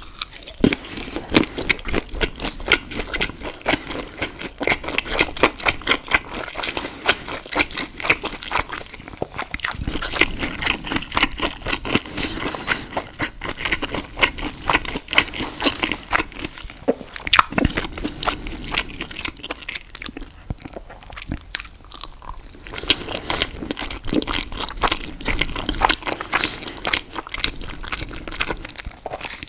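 Close-miked chewing and wet mouth sounds of someone eating pasta and sausage: a dense run of quick smacks and clicks, easing off briefly about twenty seconds in.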